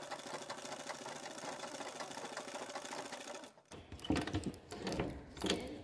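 Flat-bed sewing machine stitching leather, running with a fast, even clatter of needle strokes that stops about three and a half seconds in. A few louder, irregular knocks follow as the work is handled.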